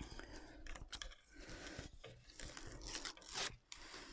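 Self-adhesive vinyl film being peeled from its paper backing and pressed down by hand: irregular crinkling and rustling of the paper and film, with a louder crackle about three and a half seconds in.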